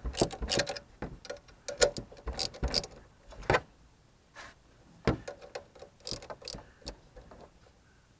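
Hand ratchet wrench clicking in quick runs as a bolt on the new coolant pump mounting is worked, then a pause and a few scattered single clicks and taps.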